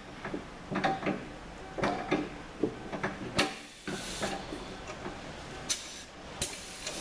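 Compressed air hissing from the pneumatic air ram's foot-pedal valve: one long hiss about three and a half seconds in and two short ones near the end, as the ram is nudged up and down. Light metal clicks and knocks come before it as the pin is worked into the ram's rod.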